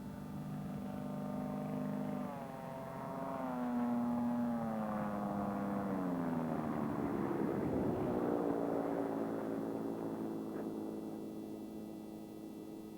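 Propeller engine of a light aircraft passing by: its drone grows louder, the pitch slides down as it goes past, and then it fades away.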